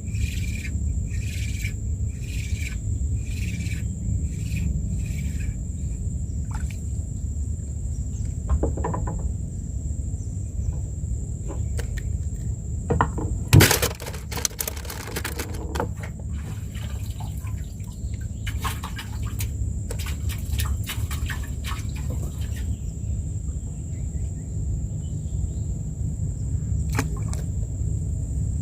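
Outdoor ambience: a bird chirping repeatedly in the first few seconds over a steady high insect drone and a low rumble. About halfway through comes one loud sharp knock, followed a few seconds later by bursts of clicking and rustling.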